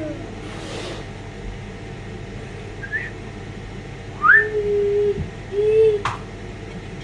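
Pet parrots whistling: a few separate short whistled notes, some sweeping upward and some held lower, with a sharp click near the end.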